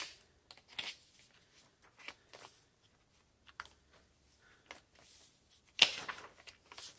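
Paper pages and tucked cards of a handmade junk journal being turned and handled by hand: soft scattered rustles and light flaps, with a sharper page flap at the start and another about six seconds in.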